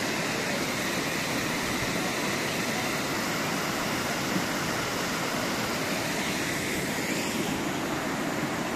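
Steady rush of water spilling down small stone steps into a stone-walled pool.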